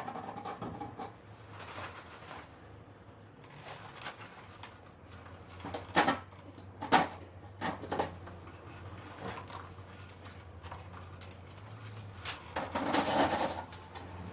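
Scattered knocks, clicks and light clatter of things being handled in a small room, two sharper knocks about six and seven seconds in, over a low steady hum.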